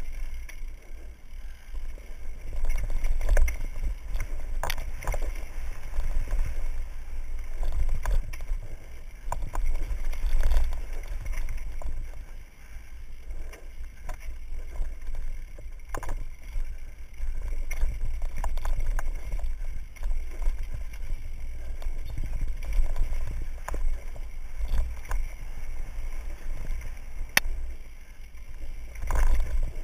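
Mountain bike riding fast down a rocky dirt trail, heard from a helmet-mounted camera. Wind rumbles on the microphone, and the bike makes scattered clatters and knocks as it goes over the rough ground.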